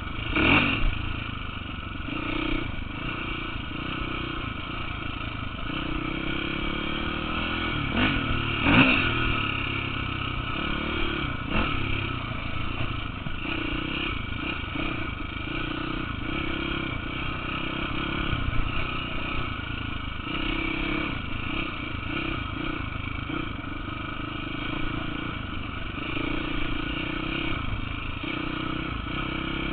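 KTM 450 dirt bike's single-cylinder four-stroke engine running on a trail ride, its note rising and falling with the throttle. A few sharp knocks cut through it, the loudest about nine seconds in.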